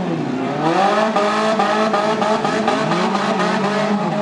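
Several demolition derby compact cars' engines revving, their pitch dropping and climbing again over and over as the cars back up and accelerate on the derby track.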